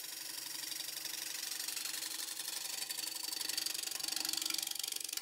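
Bowl gouge cutting the spinning rim of a spalted sugar maple natural-edge bowl blank on a Laguna Revo 18|36 lathe turning at about 700 rpm. It makes a fast, even ticking chatter over the lathe's steady whine, growing louder near the end.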